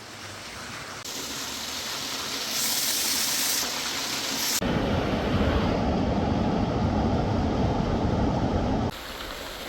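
Rushing river water, a steady noise that changes character abruptly several times, heaviest and most rumbling from about halfway through until shortly before the end.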